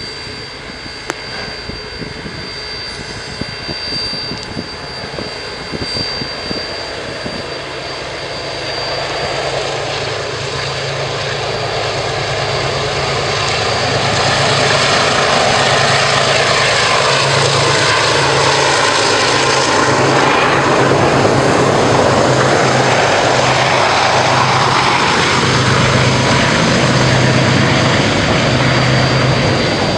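KiwiRail DXC class diesel-electric locomotives hauling a loaded coal train approach and pass close by. The low diesel engine note builds over the first half to a loud, steady rumble and rattle of wagons rolling past. Steam hisses from a standing steam locomotive alongside.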